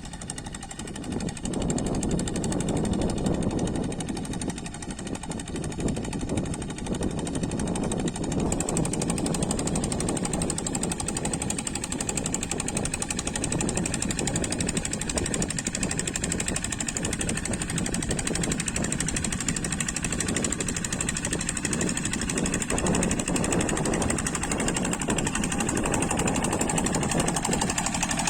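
Single-cylinder Kubota diesel engine of a two-wheel rice-paddy hand tractor running steadily, its fast chugging beat continuous throughout.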